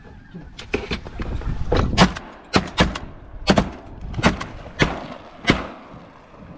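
Handling noise close to the camera's microphone: a dozen or so sharp, irregular knocks and cracks with rustling between them, as a hand and sleeve work right by the camera.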